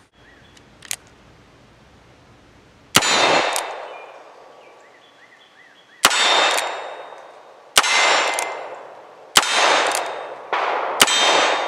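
Colt Bisley single-action revolver in .38 Special firing five slow, aimed shots, one and a half to three seconds apart, each with a short echo. A small click comes about a second in, before the first shot.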